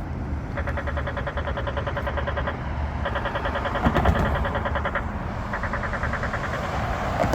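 Polara N4 accessible pedestrian push-button signal ticking rapidly, about ten ticks a second, in three runs of about two seconds each with short gaps between them. Traffic hums underneath.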